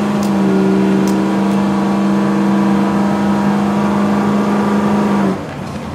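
Pickup drill truck's engine running hard at steady high revs as the truck drives the drill course, holding one pitch, then cutting off sharply a little over five seconds in as the throttle is released.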